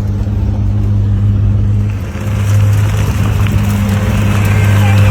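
Czinger 21C's twin-turbo V8 running steadily with a strong low hum, and a brighter rushing noise joining in about two seconds in.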